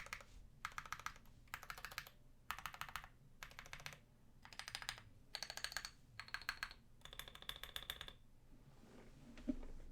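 Typing in quick bursts of rapid key clicks on a Tofu65 aluminium-case mechanical keyboard with lubed Holy Panda tactile switches, a brass plate and SA keycaps. The typing stops about eight seconds in, and a single soft thump follows near the end.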